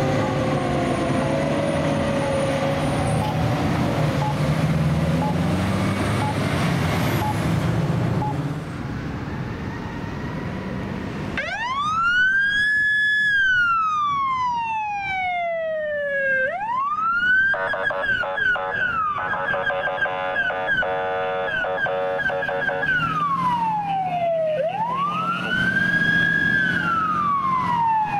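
A fire engine's diesel engine rumbles with its siren winding down in falling tones as it pulls away. Then a pickup-based fire squad's electronic siren sounds long wail cycles, each rising quickly and falling slowly. In the middle it switches for several seconds to a rapid high-low yelp before going back to the wail.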